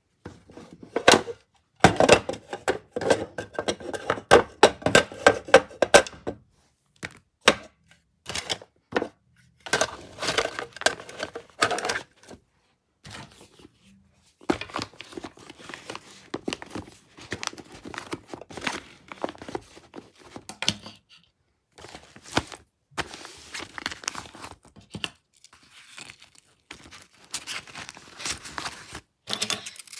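Handling noise from a fabric bag and fingerboards being moved around: crinkling and rustling with many small knocks and clicks, in bursts with short pauses. The busiest stretch is in the first few seconds.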